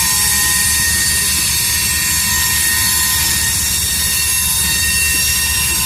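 Freight train cars rolling past at close range: a steady rumble of wheels on rail, with thin, steady high whines from the wheels over it.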